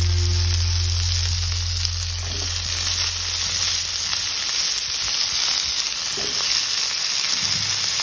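Sliced potatoes, green beans and onions sizzling as they fry in oil in a pan, stirred now and then with a wooden spatula. A low steady hum fades away in the first few seconds.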